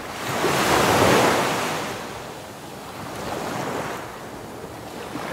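Ocean waves surging: a rush of surf noise that swells loudest about a second in, then two softer swells.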